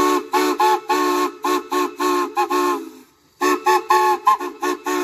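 Chime whistle sounding one chord over and over in a quick rhythm of short toots and a few longer blasts. There is a brief break about three seconds in.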